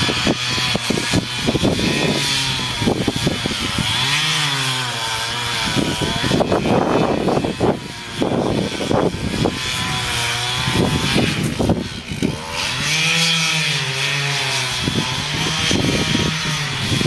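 Chainsaw running in a felling cut through the base of a large tree trunk. Its engine note dips under load and climbs again several times.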